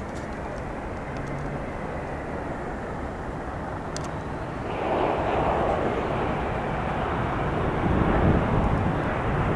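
Jet engine noise from a Boeing 777-200 rolling along the runway: a steady rush with a faint high whine that swells louder about five seconds in and again near the end.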